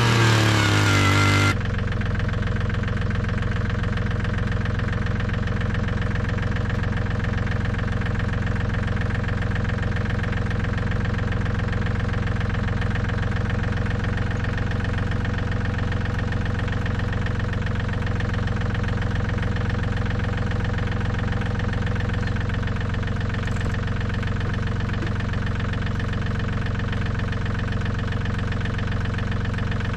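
A louder engine revving with a wavering pitch cuts off suddenly about a second and a half in. A John Deere compact tractor's diesel engine then idles steadily.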